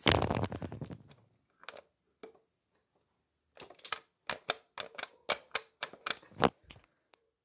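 Robosapien toy robot's motors and plastic gearboxes running in factory test mode: a short clattering run of rapid clicks, then after a pause a string of irregular sharp clicks and clacks, about two or three a second.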